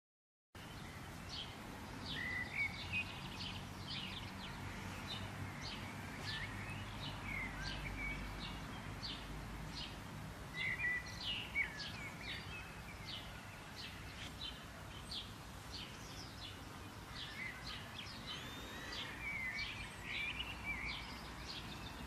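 Small wild birds chirping and calling, many short repeated notes with a few quick sliding calls, over a steady outdoor background hiss. The sound starts abruptly about half a second in.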